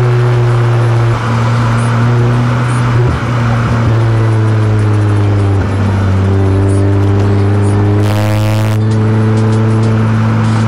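Steady in-cabin drone of a Honda CR-Z Mugen RZ being driven along a winding road, mixed with background music whose held notes change every second or two.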